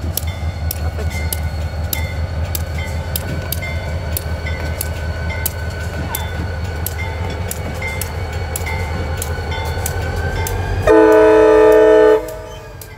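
A CSX diesel locomotive rumbles past while a railroad crossing bell dings steadily. Near the end a locomotive horn sounds one loud blast, a chord of several tones lasting about a second and a half, the loudest sound here.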